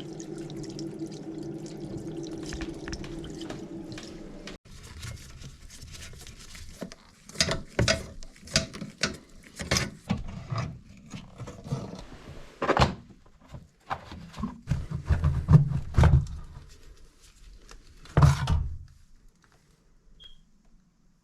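A steady hum, then an abrupt change a few seconds in to a series of irregular knocks and heavy thumps, some sharp and some dull, before it falls nearly quiet near the end.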